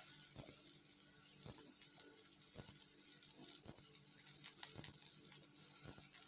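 Butter melting in a pan over a low flame: a faint, steady sizzle with small scattered crackles.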